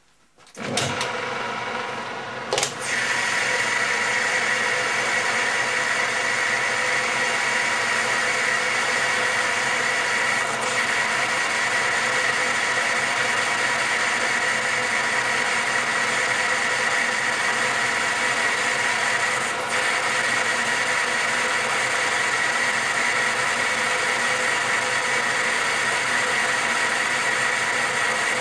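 Metal lathe starting up about half a second in, then running steadily while its tool turns a white plastic rod. From about three seconds in a steady high-pitched cutting sound is added, with a click just before it.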